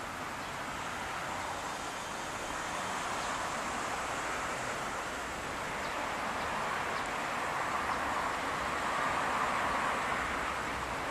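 Steady outdoor background noise, an even hiss and rumble with no distinct events, swelling gently in the second half.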